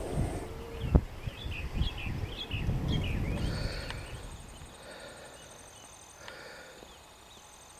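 Rustling and low thumps for the first few seconds, with short bird chirps over them. Then it quiets to insects trilling.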